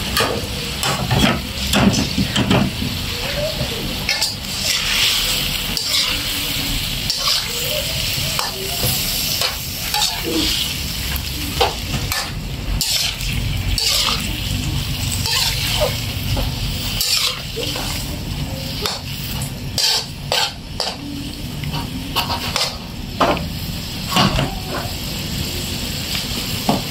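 A metal ladle scrapes and knocks irregularly against an aluminium wok as squid and bok choy are stirred in a shallow sauce. A steady sizzle runs underneath.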